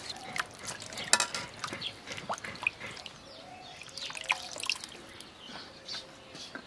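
Water splashing and dripping in a steel bowl as peeled pointed gourds are rinsed by hand and lifted out, with scattered drips and a few light clicks.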